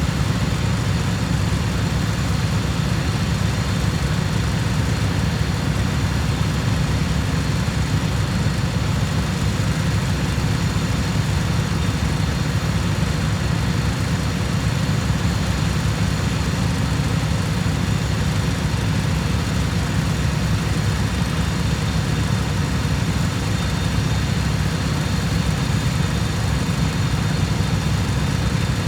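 Riding lawn mower's engine running steadily at a constant speed, a deep even drone that does not change.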